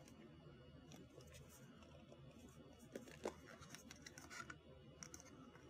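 Near silence with a few faint clicks and rustles of hands handling the plastic Master Ball toy, the clearest about three seconds in and again a second or so later.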